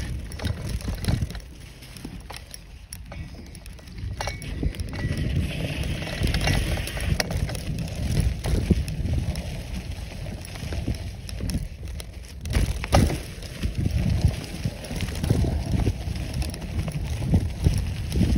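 Bicycle riding over a dirt trail covered in dry leaves: tyres crunching and the bike rattling, with sharper knocks over bumps about four seconds in and again around twelve to thirteen seconds, under wind buffeting the microphone.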